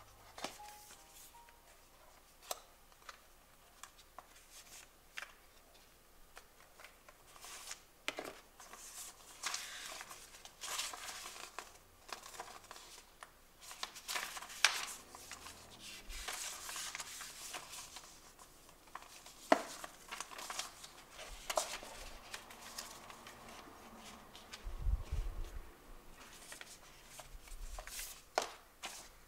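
Paper and thin card rustling and sliding as a laptop's documentation folder is opened, leafed through and its sticker sheet taken out, with short light taps and clicks scattered throughout.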